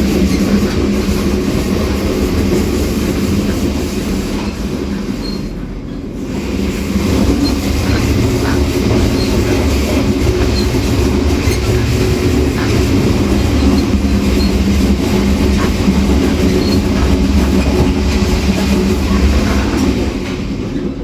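Running noise at the connection between the electric locomotive and the first coach of a Taiwan Railways push-pull Tze-Chiang express: a steady loud rumble and hum with occasional clicks from the wheels. It eases briefly about five seconds in, then builds back up.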